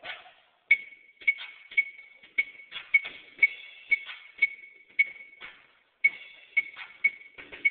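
A small, high ringing ping struck about twice a second, each strike sharp and clear, with fainter clinks between them. It breaks off briefly about six seconds in and comes a little faster near the end.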